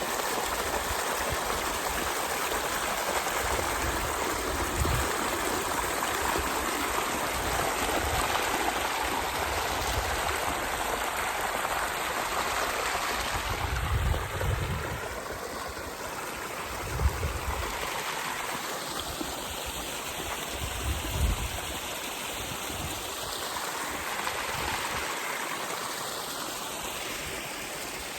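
Mountain stream running: a steady rush of flowing water, with a few brief low bumps on the microphone past the middle.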